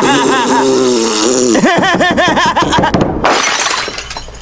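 A man blubbering his lips with his fingers in silly raspberry noises and laughing. About three seconds in, a glass snow globe shatters on the floor, and the crash fades out near the end.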